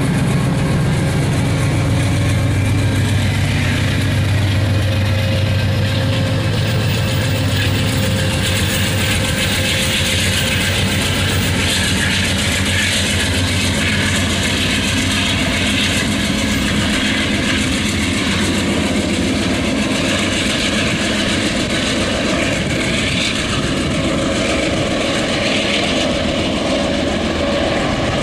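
Diesel engine of an Amtrak GE P42DC passenger locomotive running with a steady, deep drone, strongest in the first several seconds, as it moves its push-pull train of bilevel cars, with the rolling noise of the train over it.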